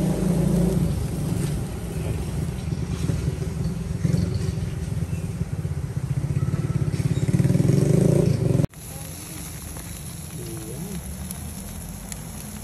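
A loud, steady low motor rumble that grows louder and then cuts off abruptly near the end. After it, a quieter hiss and faint sizzling of prawns grilling over charcoal.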